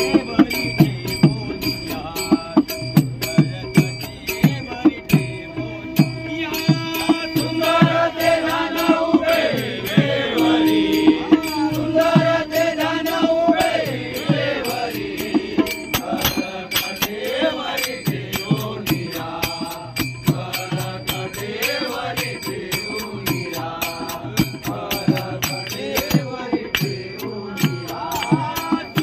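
Marathi devotional abhang sung as a bhajan: a man's powerful voice over a steady beat of drum strokes and small hand cymbals.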